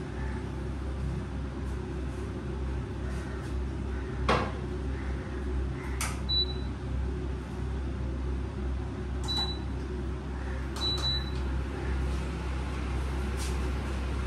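Kitchen clatter: steel utensils and cupboard things knocking and clinking now and then, the sharpest knocks about four and six seconds in, over a steady low hum. Three short high beeps sound in the second half.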